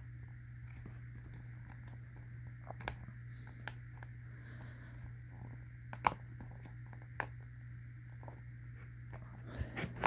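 Scattered small clicks and taps of rubber and plastic gas mask parts being handled while an eyepiece is fitted, over a steady low hum.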